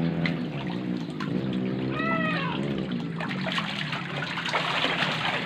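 Water sloshing and splashing in a concrete pond as large catfish broodstock are herded into the shallows, louder in the second half. A low wavering drone runs through the first half, and a single short high call rises and falls about two seconds in.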